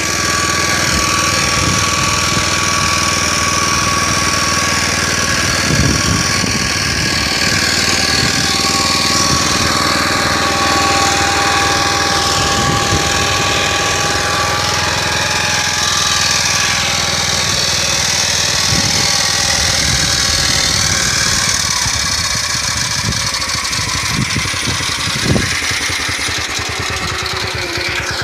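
Motor Sich walk-behind tractor engine running steadily under load in second gear, pulling a disc hiller through potato rows. A few short knocks sound through it, the loudest near the end.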